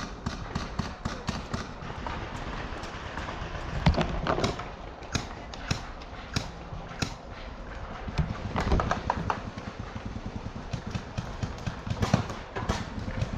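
Paintball field activity: a string of irregular knocks, taps and pops, such as markers firing and a player moving on the ground. The loudest clusters come about four seconds in and again around nine and twelve seconds.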